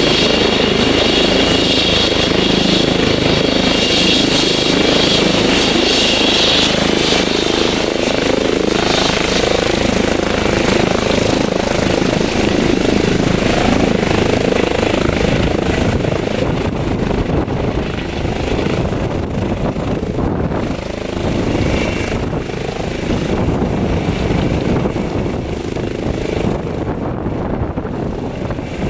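Airbus H135 twin-turbine helicopter running at high power during takeoff: a steady rotor and turbine sound with a high whine, most prominent in the first several seconds. A thin high tone comes in later, and the overall level eases slightly in the second half.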